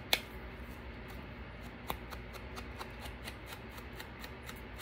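Light, irregular clicks and rustles of a cardstock tag and an ink blending tool being handled, with a sharper tap just after the start and another about two seconds in, over a faint low hum.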